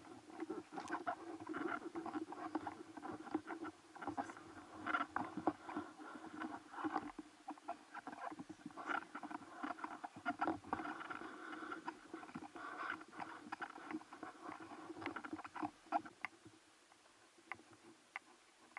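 Footsteps climbing steps, with many small clicks and knocks from carried gear over a steady low drone, thinning out near the end.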